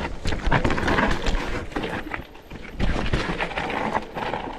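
Mountain bike clattering and rattling over rocks and roots on a descent, with a rush of dense knocks and scrapes from tyres and frame. Two louder stretches, the first in the opening seconds and the second about three seconds in. The trail is slippery.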